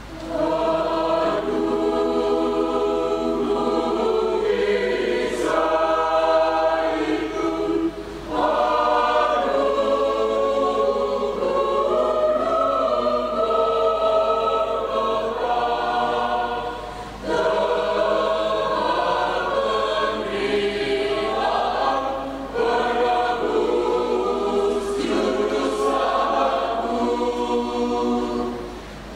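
Mixed choir of men and women singing a hymn in parts. Their phrases break off in short pauses about 8, 17 and 22 seconds in.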